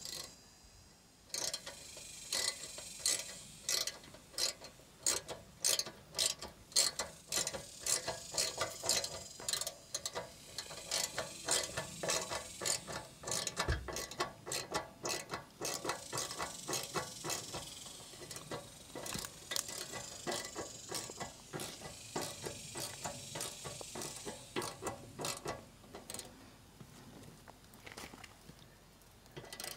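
Hand ratcheting screwdriver clicking over and over, about two to three clicks a second, as it turns a screw through the back of a metal meter base into the wooden wall.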